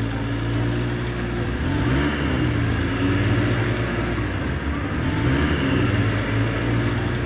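Car engine sound effect running steadily, its revs rising and falling about every two seconds, laid over toy cars driving along a play road.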